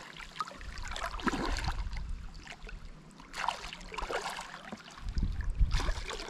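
Hooked smallmouth bass splashing and thrashing at the water's surface in several short bursts as it is played in on a fly line, over a low rumble.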